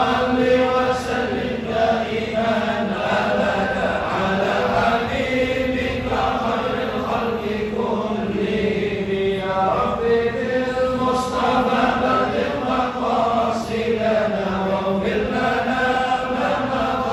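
A congregation chanting together in Arabic: a selawat, a devotional blessing on the Prophet, sung as a slow, drawn-out melody with long held notes and no breaks.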